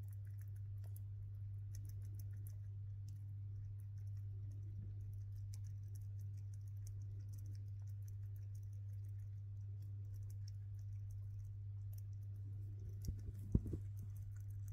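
Siberian chipmunk gnawing and cracking sunflower seeds: many faint, quick clicks over a steady low hum. A few louder soft knocks about 13 seconds in.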